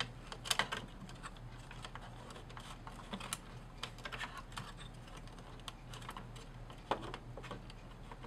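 Scattered, irregular small clicks and taps of hands working plastic parts and wires: wires pressed back under their tabs and the circuit board being fitted into the grey plastic housing of an MEI VN series bill validator.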